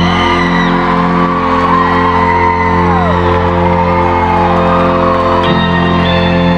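Live band music heard from the stands of an arena: a held chord of steady notes, with fans whooping and screaming over it in gliding pitches. Near the end, new high ringing notes come in.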